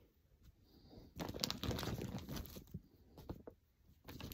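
Rustling and crinkling of yarn packaging as skeins are handled and pulled from a bag, mostly in a stretch starting about a second in, with a few light clicks after it.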